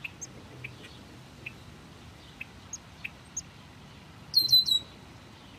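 Newly hatched nestlings peeping in the nest: scattered short, thin chirps, then about four seconds in a louder run of quick chirps with falling notes. These are begging calls, made with beaks gaping for food.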